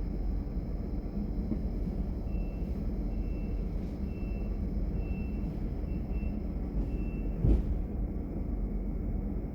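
Class 425 electric multiple unit running, heard from inside the passenger car: a steady low rumble of wheels and running gear. A row of six short high beeps sounds at even spacing through the middle, and near the end a single sharp knock stands out.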